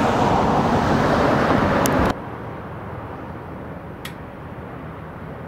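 Steady outdoor rushing noise that cuts off abruptly about two seconds in, leaving a much quieter background hiss with a single faint click near four seconds.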